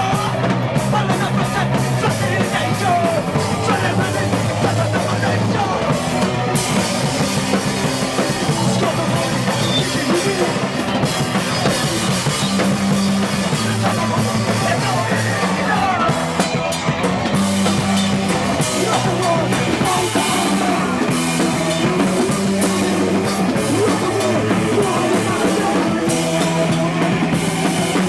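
Live rock band playing a loud, driving song with a pounding drum kit and a bass line that changes note every second or so.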